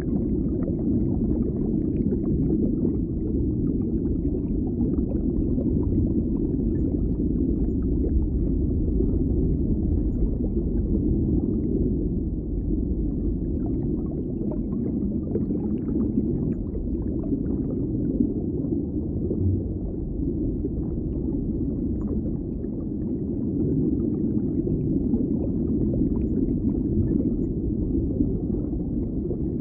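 Steady, muffled underwater ambience: a low rumble with faint bubbling crackle.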